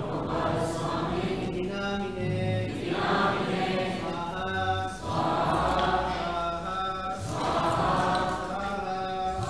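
A group of voices chanting Sanskrit prayers together in phrases of a second or two, the pitch rising and falling with each phrase.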